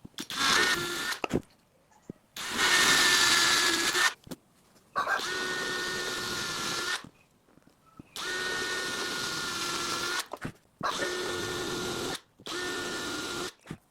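Small electric power tool running in about six separate bursts of one to two seconds, switched on and off between them, with a steady whine.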